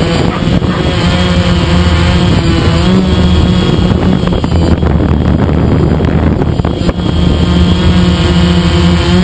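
DJI Phantom quadcopter's motors and propellers humming loudly and steadily, their pitch wavering slightly as it manoeuvres, heard close up from the onboard camera. A rush of wind buffets the microphone for a few seconds in the middle.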